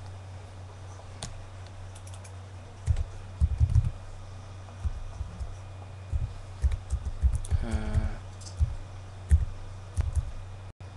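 Irregular taps and clicks of typing on a computer keyboard, coming through as low thumps, over a steady low electrical hum. A short murmured voice sound comes about eight seconds in.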